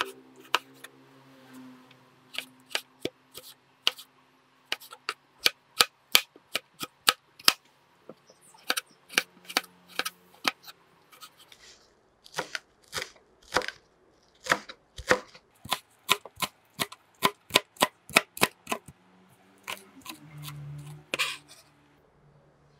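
Chef's knife chopping on a plastic cutting board: sharp knocks of the blade meeting the board, about two or three a second, first slicing a tomato, then, after a short pause, chopping coriander leaves.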